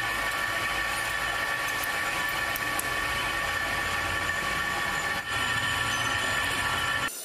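Metal lathe running with its chuck spinning as a turning tool cuts a metal shaft: a steady whine of several held tones over a machine hum. It cuts off abruptly just before the end.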